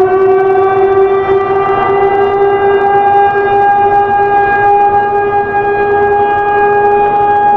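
Warning siren sounding a loud, steady alert tone. Its higher note shifts up slightly about three seconds in.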